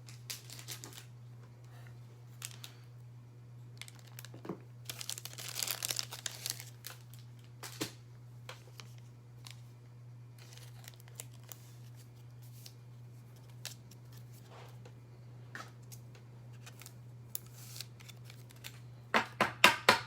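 Trading cards being handled and slid into plastic sleeves: soft crinkling and rustling of plastic, with a longer scratchy rustle about five seconds in and a quick run of sharp clicks near the end, over a steady low hum.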